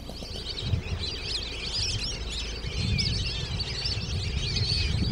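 Many small birds chirping and twittering at once, a dense overlapping chorus, over a low rumble.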